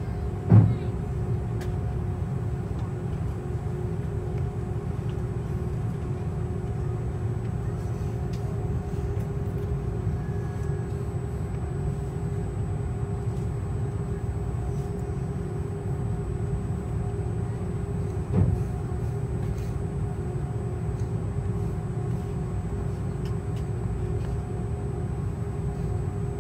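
Airliner cabin noise while taxiing: a steady low rumble of the jet engines with a steady hum over it. Two brief thumps come through, one about half a second in and one about two-thirds of the way through.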